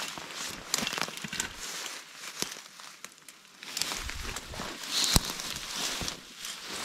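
Footsteps and a snake hook pushing through dense tall weeds: steady rustling and crackling of leafy and dry stems, with irregular snaps, the sharpest about five seconds in.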